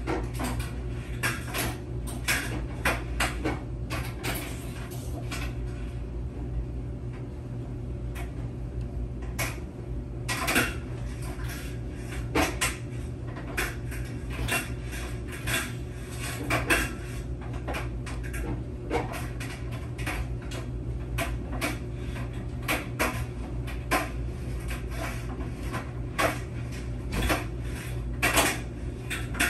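Laundry machine running with a steady low hum, overlaid by irregular clinks and knocks, about one or two a second.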